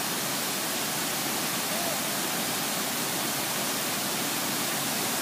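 Steady rushing of a large waterfall.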